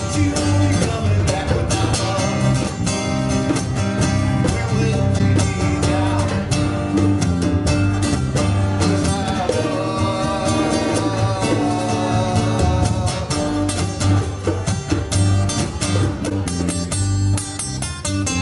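Live band playing a country-style song, with guitar, a steady bass line and drum hits.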